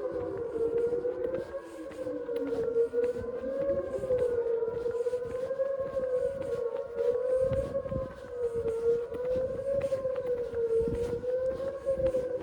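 Outdoor tornado warning sirens sounding a steady alert tone together during a test, their pitch wavering slowly up and down as the rotating heads turn. A second, lower tone slides downward over the first few seconds.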